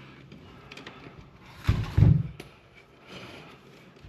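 Insulated electrical wire being pulled by hand through a metal junction box: light rustling and scraping of the wires, with one louder, brief bump of handling noise about two seconds in.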